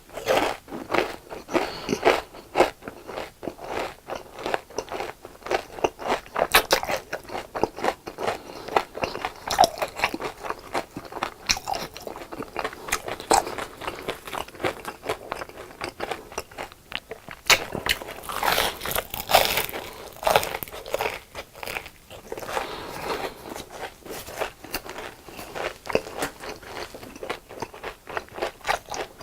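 Close-miked biting and chewing of crispy fried food, with dense, irregular crunches throughout and a louder run of crunching a little past halfway.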